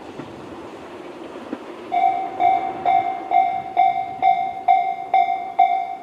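Low rumble of a train that has just passed. About two seconds in, an electronic Japanese level-crossing bell of Tobu's 'sound C' type starts, a ringing tone struck a little more than twice a second: the crossing warning is activating again for an approaching train.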